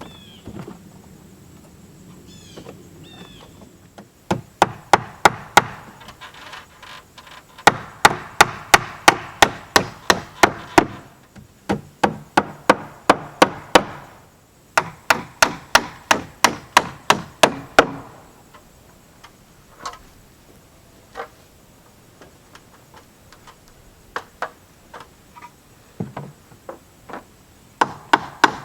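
Hammer driving stainless ring-shank siding nails into tulip poplar trim: several runs of quick strikes, about four a second, with a few lighter single taps between them.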